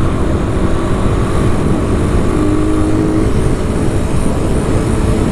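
Motorcycle, likely a Suzuki Raider 150, cruising at steady speed, with its engine hum under a heavy, steady wind rumble on the bike-mounted microphone.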